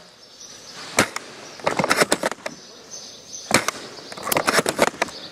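Spring-powered bolt-action airsoft sniper rifle (Tokyo Marui VSR-10) fired twice, about two and a half seconds apart. Each sharp shot is followed by a quick rattle of clicks as the bolt is cycled.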